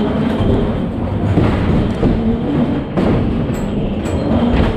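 Ghost train car rumbling along its track through the dark ride, with the ride's spooky music playing over it. A few sharp knocks come in the second half.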